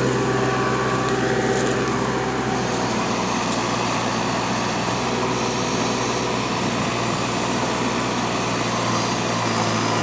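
JCB 214 backhoe loader's diesel engine running steadily under load as its bucket and thumb work a rotten tree stump loose, with a higher whine over the first two seconds or so.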